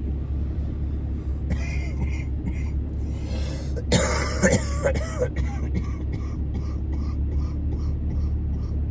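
A man coughing and clearing his throat, choking on a bite of snack, with a loud fit of coughs about halfway through, over the steady low hum of a vehicle's engine.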